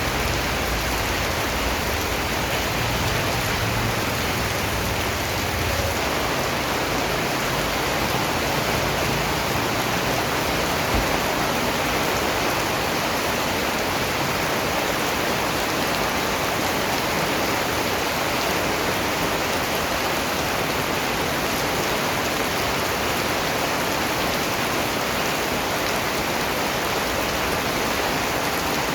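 Steady rainfall, a dense even hiss of drops with no single drops standing out. A faint low rumble sits under it for the first few seconds.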